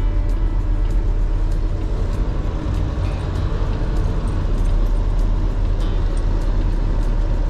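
Semi-truck's diesel engine running, heard from inside the cab as a steady low rumble while the truck moves slowly.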